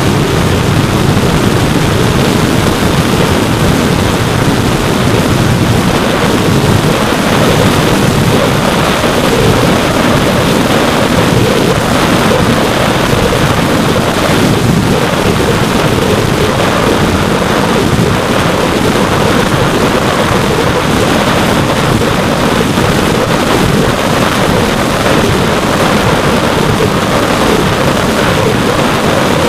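Loud, steady rush of wind over the onboard keychain camera's microphone on an RC glider in flight, with no clear motor tone standing out.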